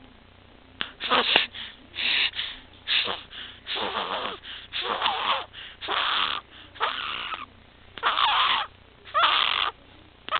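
Infant's noisy, raspy stridor, about one harsh breath a second: the airway noise of laryngomalacia and tracheomalacia, the floppy voice box and windpipe partly collapsing with each breath.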